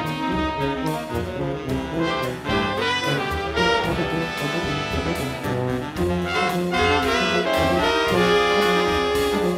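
Jazz orchestra playing live: a trombone among the brass and saxophones, over upright bass and drums.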